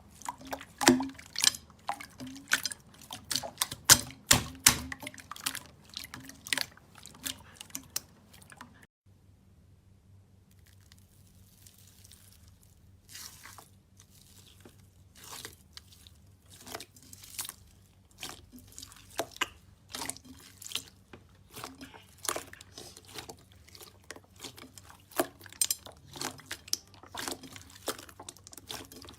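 Slime being squished and pressed: a quick, dense run of wet clicks and pops, which stops abruptly about nine seconds in and then starts again sparser and softer, building back up.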